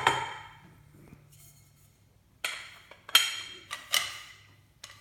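Metal knocks and clanks with a brief ring as an IV pole is set onto its stainless steel and aluminium base connector: one sharp clank at the start, then a cluster of four knocks in the second half.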